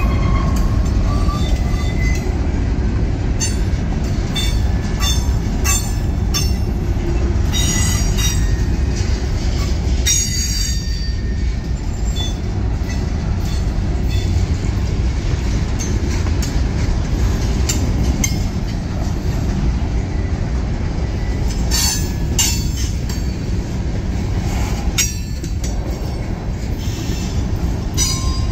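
CSX freight cars (covered hoppers and tank cars) rolling past at a grade crossing: a steady, loud rumble of wheels on rail, with irregular sharp clicks and clanks and brief high-pitched wheel squeals now and then.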